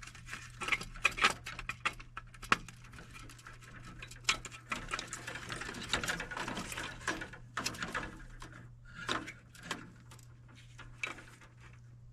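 Hands fitting wiring harness connectors onto a new furnace control board, making irregular small plastic clicks and rustles over a steady low hum.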